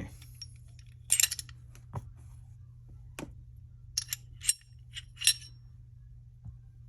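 Small metal parts of a Glock 43 pistol clinking and clicking against each other and a hard surface as they are handled: an irregular scatter of sharp clinks, the loudest about a second in and again just past five seconds. A steady low hum lies underneath.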